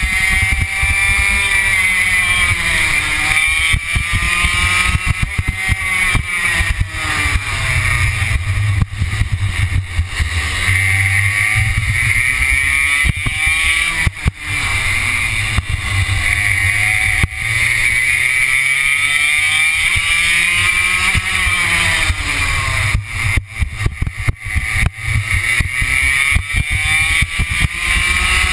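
Racing kart's two-stroke engine heard from on board. The revs drop into each corner and climb again on the straights, over and over through the lap.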